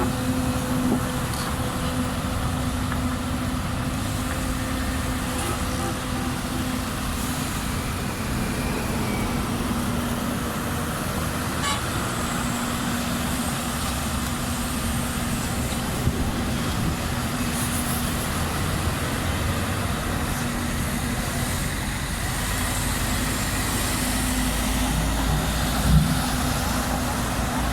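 Excavator's diesel engine running steadily with a constant low hum, and a single thump near the end.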